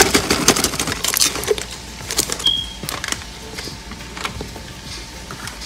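Crumpled aluminium foil crinkling as roasted tomatoes, onion and garlic slide off it into a glass blender jar, with dense crackling for the first second and a half, then sparser clicks.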